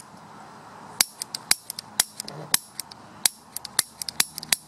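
Sharp clicks at an irregular three or four a second: a barbecue lighter's piezo igniter firing sparks across the gap between two screws set into a PVC combustion chamber.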